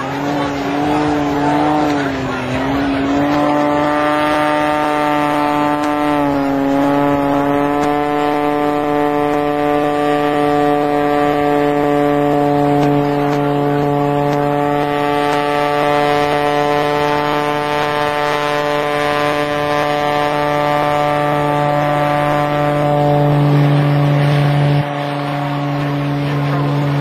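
Oracle Challenger aerobatic biplane's piston engine and propeller running at high power overhead. The pitch sags twice in the first several seconds, then holds steady, and the loudness drops abruptly near the end.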